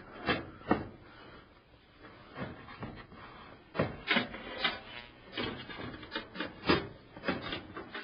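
Motherboard tray being set into a PC case: irregular knocks, clicks and short scrapes of the tray against the chassis.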